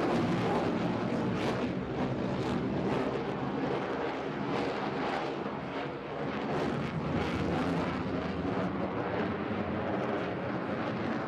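Jet noise from a flying F-22 Raptor's twin Pratt & Whitney F119 turbofan engines: a loud, steady rush with irregular crackles throughout.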